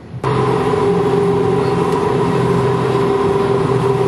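Streetcar running, heard from inside the car: a steady whine in several tones from its drive over a rumbling running noise. It starts abruptly about a quarter-second in.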